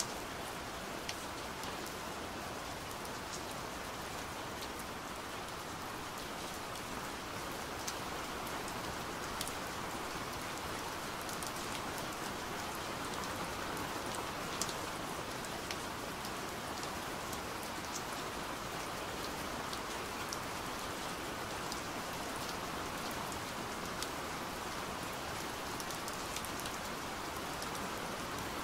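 Steady rain falling, an even hiss with scattered sharper ticks of single drops.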